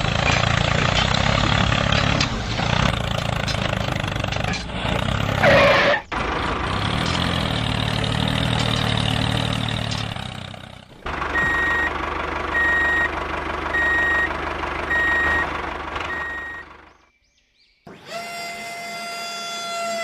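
Heavy vehicle engine sounds: a truck engine runs for the first half. A reversing alarm then beeps about once a second, and after a brief pause a steady engine drone starts near the end.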